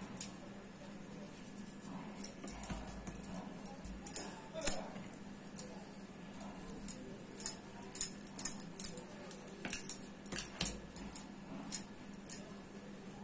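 Rolling pin working dough on a stone countertop: irregular light clicks and clinks, starting about two seconds in and coming more often in the second half.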